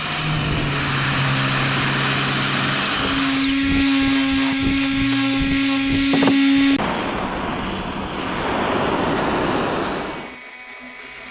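Power saw cutting pallet wood in three spliced clips. First comes a steady motor hum with a high hiss. A little over three seconds in it switches to a higher steady whine with some rattling. About seven seconds in it changes abruptly to a rougher, noisier cut, which fades out about ten seconds in.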